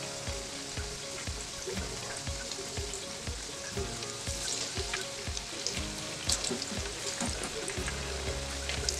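Saltfish fritters sizzling steadily in hot frying oil, with a slotted spatula clicking against the pan a few times from about halfway through as they are turned over. A soft music beat runs underneath.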